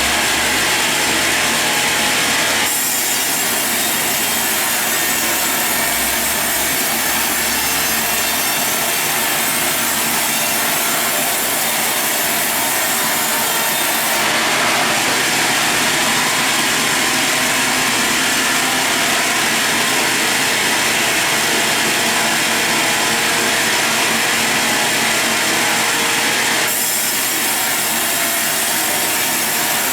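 Power saw cutting lengthwise through a large log in a sawmill, a steady hissing rasp of blade in wood that changes character abruptly a few times.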